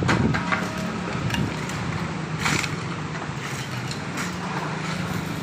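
A vehicle engine running steadily with a low hum, under road and wind noise, with a short sharper sound about two and a half seconds in.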